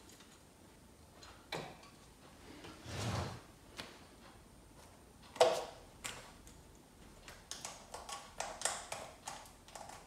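Scattered clicks and light clatter of wires and clips being handled at a battery's terminals, with one sharp click about halfway through and a run of quick clicks near the end.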